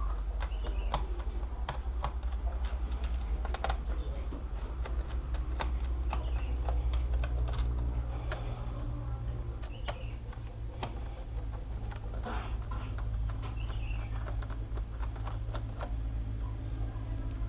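Irregular small clicks and taps of a screwdriver working the bottom-case screws out of a laptop, over a steady low hum.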